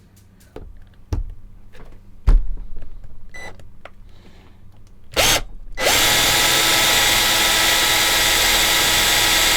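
A few handling knocks, then a small handheld power tool starts with a short burst and runs steadily at full speed for the last few seconds, being used on a stripped screw.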